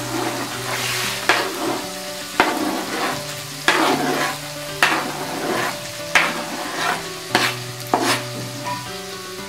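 Onion-tomato masala sizzling in a kadai as a knife scrapes chopped boiled egg off a plastic cutting board into the pan, about one scraping stroke a second.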